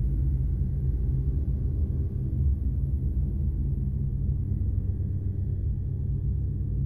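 Deep, steady, dark ambient drone: a low rumble that continues after the narration and eases off slowly.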